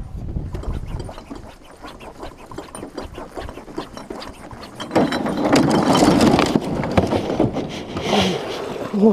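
Clothing scraping and rubbing against a body-worn camera, with scattered small knocks in an aluminum jon boat, turning loud and scuffling about five seconds in as the people in the boat are jostled and the boat tips.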